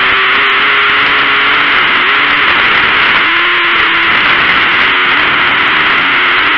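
Onboard camera audio of a dirt-track sprint car at racing speed: a loud, harsh engine and wind drone. The engine note wavers, drops away about two seconds in and picks up again about a second later as the car goes through the turn.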